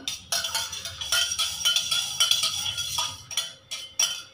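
Spoon stirring lemon water in a stainless steel pot, clinking against the sides several times a second with a metallic ring.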